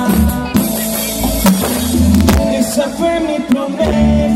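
Live band music played loud over a concert PA, with deep bass and sharp drum hits, heard from within the audience.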